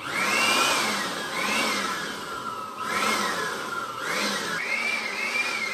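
Handheld electric air blower switched on and running: a rush of air with a motor whine that rises and falls again and again.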